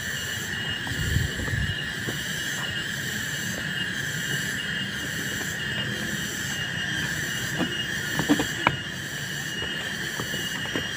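Steady shrill insect chorus, a high drone with a regular pulse in its highest part, with a few light knocks about eight seconds in.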